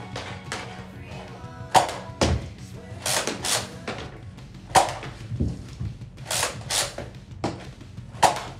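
Background music with a steady beat, over sharp thunks from a Nerf Rival blaster firing foam balls, the loudest about every three seconds.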